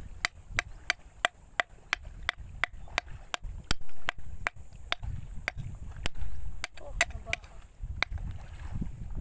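A bolo knife's steel blade chopping at an oyster-encrusted rock to chip the oysters off: a steady run of sharp knocks, about two to three a second.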